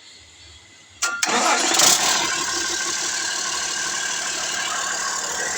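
Cummins 6CTA six-cylinder turbocharged diesel engine cranking and firing up about a second in, after an overhaul, then settling into a steady idle.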